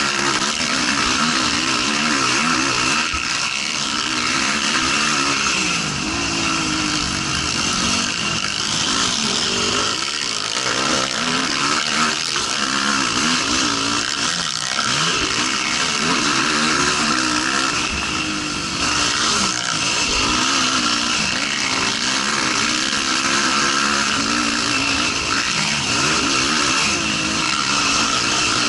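Racing quad engine at full race pace, revving up and dropping off again and again as it accelerates and backs off, with constant wind rush over the onboard microphone.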